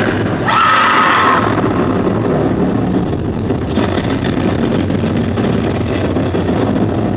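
Pre-recorded show soundtrack over a hall sound system: a dense, loud rushing and rumbling noise, with a brief high tone about a second in.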